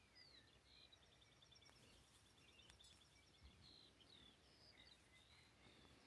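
Near silence, with faint birds chirping and trilling in the background.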